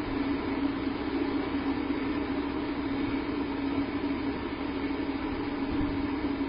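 Steady low hum over a constant hiss, unchanging throughout.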